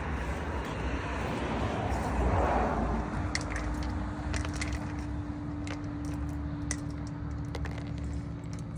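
A vehicle passes, its noise swelling and fading over a steady low rumble. Scattered light metallic clicks and clinks follow from about three seconds in.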